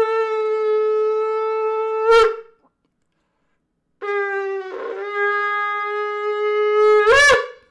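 Large ram's horn shofar blown in two long, steady notes, the first about two seconds and the second about three, each ending with a short upward jump in pitch.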